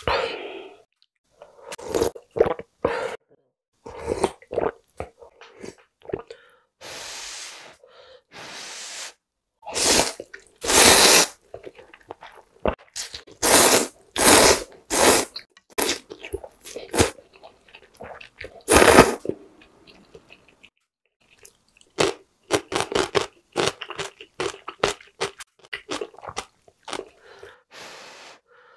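Close-up slurping of hot instant ramyeon noodles and broth, in a long series of separate noisy slurps of about half a second to a second each, with softer chewing sounds between them.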